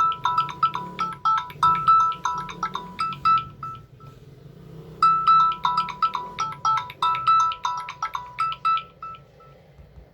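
Samsung Galaxy A03s phone playing a ringtone: a quick melody of short, bright, pitched notes, played twice with a pause of about a second and a half between the two plays.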